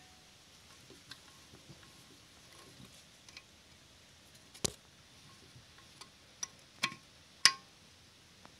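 Sharp metallic clinks and light ticking of hand tools on a Dongfeng diesel engine's valve gear during a valve clearance adjustment, with the engine not running. Faint small ticks go on throughout, with a few louder, briefly ringing clinks in the second half.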